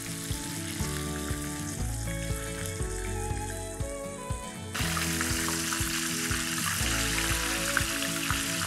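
Coated chicken breast pieces deep-frying in hot oil with a steady sizzle that gets louder a little before five seconds in, over background music.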